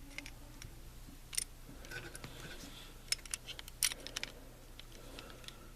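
Small metal clicks and light scrapes of a screwdriver and revolver parts being handled as a screw is lined up and turned into a black-powder revolver's frame, irregular, with the sharpest clicks about a second and a half in and around four seconds in.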